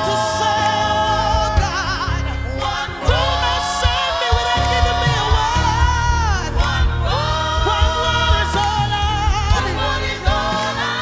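Gospel worship music: singers holding long notes with vibrato over a band with bass and drums.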